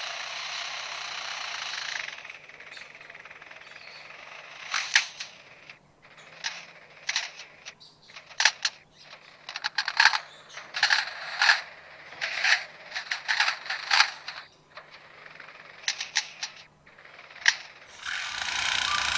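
Lyrebird mimicking construction sounds: a steady hissing whir like a power tool, then a long run of sharp, irregular clicks and bangs like hammering or a nail gun, and the whir again near the end.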